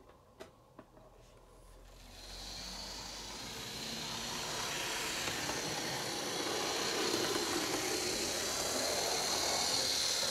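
A few light clicks, then an HO scale model locomotive running on the track: a steady hiss of motor and wheels that starts about two seconds in and grows louder toward the end.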